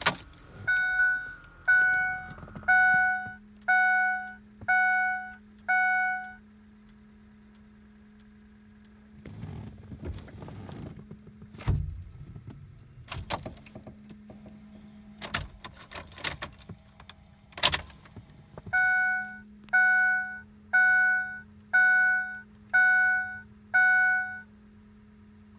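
Truck's warning chime dinging six times about a second apart, then silent. Later come a thunk and a few sharp clicks, and a second run of six dings near the end. A faint steady hum runs underneath, and no engine cranking is heard in this no-start.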